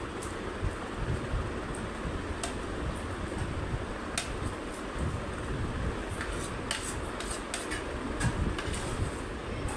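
A steel spoon clinking and scraping against a stainless steel thali tray while mixing rice and curry: a scatter of sharp, short clicks, more of them in the second half, over a steady background hiss.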